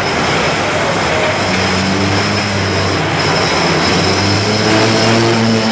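C62 steam locomotive running, a loud steady noise from its wheels and running gear on the rails, with a steady low hum joining about a second and a half in.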